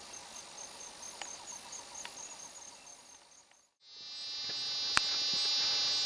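Insects chirping in an even, repeating rhythm in dense vegetation. A little over three and a half seconds in, the sound drops out briefly at an edit. It comes back as a louder, denser high-pitched insect buzz, with one sharp click about a second later.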